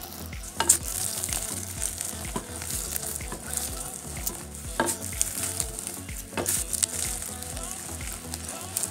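Roasted cacao beans crunching and crackling as a wooden pestle pounds and grinds them in a wooden mortar, with a few sharper knocks of the pestle, near the start, about the middle and a second and a half later.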